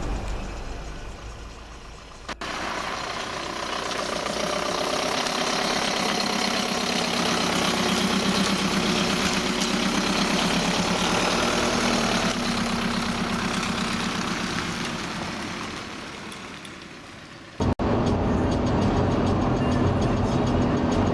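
A car's engine running as it pulls away. After a sudden cut near the end, this gives way to steady engine and road noise inside a car at motorway speed. Music fades out in the first two seconds.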